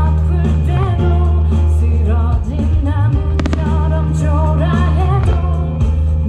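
Pop song with singing over a heavy, steady bass, played loud. A couple of sharp cracks cut through about three and a half seconds in.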